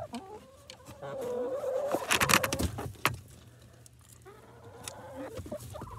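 Hens murmuring softly, a low wavering sound, with feathers and nest bedding rustling and scraping against the microphone in short clicks and brushes.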